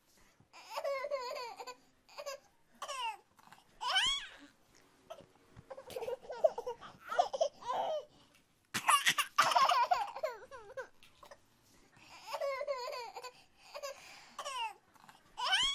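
A baby's high-pitched babbling and squeals broken by quick warbling laughs, with rising squeals about four seconds in and near the end and the loudest burst about nine seconds in.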